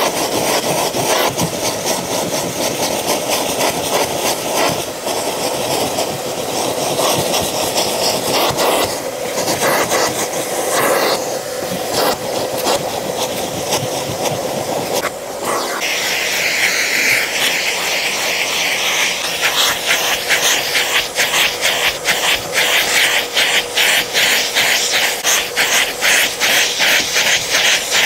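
Vacuum cleaner running with its crevice nozzle drawn over the carpet of a car floor mat, picking up embedded dirt. About halfway through the suction sound turns higher and hissier, and quick, regular strokes over the carpet follow.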